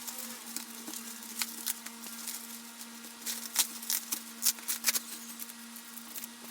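Plastic bubble wrap being handled and pulled off a box, crinkling and crackling in irregular clicks, with a few sharper, louder crackles midway. A steady low hum runs underneath.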